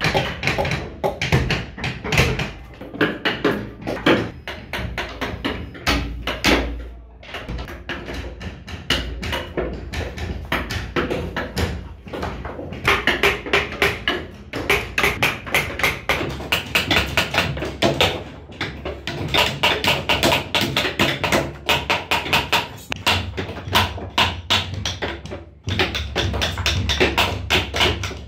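Background music with a fast, busy percussive beat of tapping strokes.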